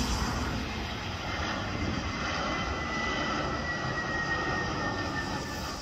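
Twin-engine jet airliner flying low overhead on landing approach with its gear down: a steady jet engine rush with a faint whine that slowly falls in pitch.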